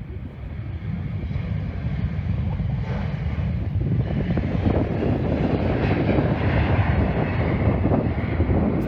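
Airliner engines growing steadily louder as the aircraft approaches overhead, a broad rushing roar that builds through the whole stretch.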